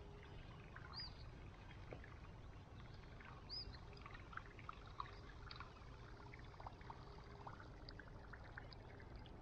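Faint water trickling and lapping against a canoe's hull as it glides on calm water, with small scattered drips and ticks. Two short high chirps come about a second in and again a few seconds later.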